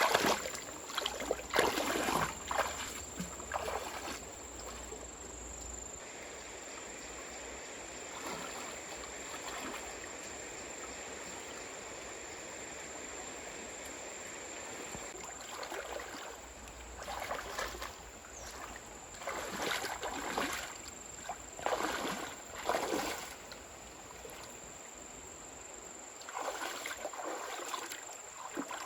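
Water splashing and sloshing in bursts several times over a steady rush of flowing water.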